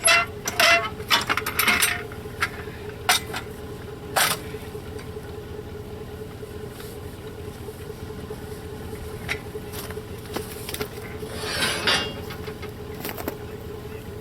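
Scattered metal clinks and knocks from work on a sawmill frame being jacked up, over a steady hum. The clinks come thickest in the first two seconds, with single knocks about three and four seconds in and a brief scraping swish near the end. A few short beeps sound at the very start.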